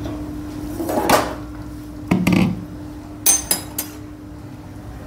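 Steel tongs knocking and clinking against stainless steel pots while spinach is transferred into a bowl of ice water: two duller knocks, then three sharp ringing clinks close together shortly after the middle.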